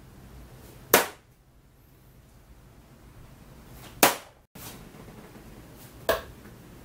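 Soft-tip darts hitting a dartboard: three sharp impacts, the first two about three seconds apart and the third about two seconds later.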